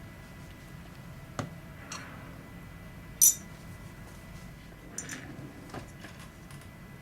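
Small hard metal parts clinking and tapping as they are handled: a few light knocks, one sharp, bright clink about three seconds in, and a cluster of lighter ticks near the end.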